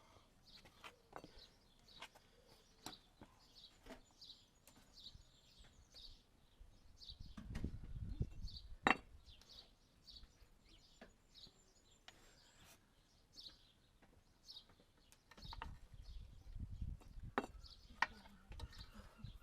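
Birds chirping over and over in the background, with scattered sharp clicks and knocks, the loudest about nine seconds in. There are two spells of low rumbling handling noise, one around the middle and one near the end.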